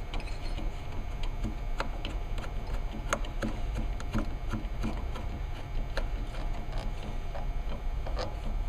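Small, irregular clicks and ticks of a chrome choke knob cover being screwed by hand onto its retainer over the motorcycle's stock choke knob, one click louder about three seconds in.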